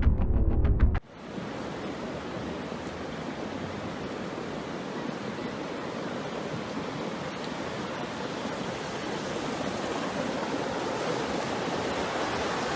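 Music cuts off about a second in, then a steady rush of water from a heavy downpour and flash flooding, growing slightly louder towards the end.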